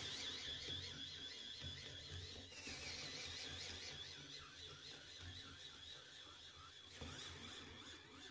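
Cordless drill with a twist bit boring through a pine board: a steady motor whine that wavers quickly in pitch, over a low hum.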